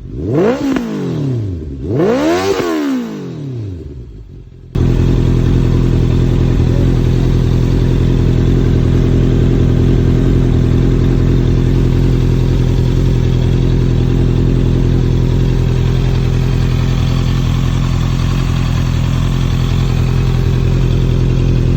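Honda CB650R inline-four through a Yoshimura aftermarket exhaust, blipped twice with the revs rising and falling. About five seconds in the sound switches abruptly to the engine idling steadily for the rest.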